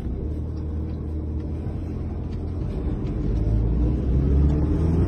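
Car engine running, heard from inside the cabin: a steady low rumble that grows a little louder near the end.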